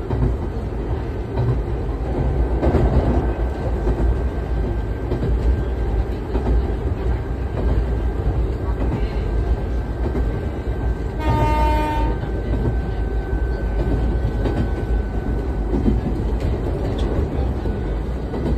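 Onboard running sound of a Nagano Electric Railway 3500 series (ex-Eidan 3000 series) electric train: a steady rumble from wheels and running gear. About eleven seconds in comes a short horn blast of under a second.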